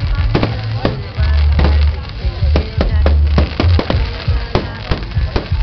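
Fireworks going off in quick, irregular bangs, several a second, over loud music with a heavy bass line.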